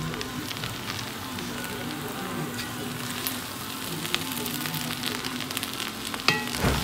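Pot of mixed rice with coconut milk sizzling and bubbling on low heat, with scattered light clicks and a sharper knock about six seconds in. Faint background music underneath.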